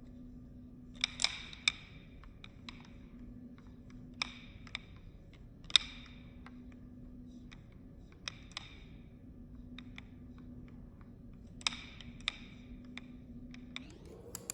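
Balisong (butterfly knife) handles clacking and clicking as the knife is flipped, in scattered single and paired metallic clicks with short ringing, several seconds apart.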